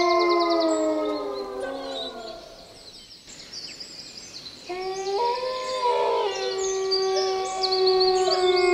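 Long, drawn-out howling from several animals at once, the pitches sliding slowly. It dies away about two to three seconds in and starts up again about five seconds in. Small birds chirp quickly in the background.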